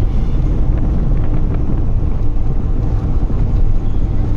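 A moving vehicle's steady road and engine noise, with wind rumbling on the microphone.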